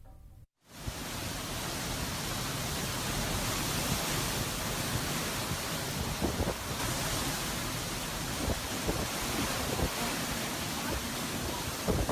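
Hurricane-force wind rushing as a steady, loud noise, starting abruptly just under a second in, with a few brief buffets of wind on the microphone.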